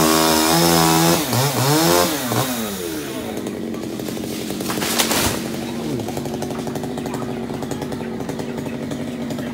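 Chainsaw revving hard, its pitch dipping and rising again, then dropping to a steady idle about three seconds in. A single sharp crack comes about five seconds in.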